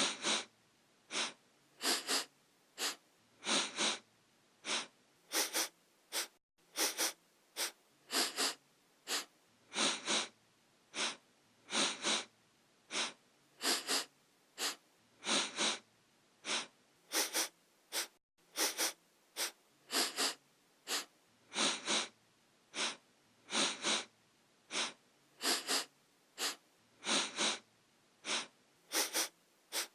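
A person sniffing through the nose over and over, short sharp sniffs in quick succession, about two a second, some in quick pairs.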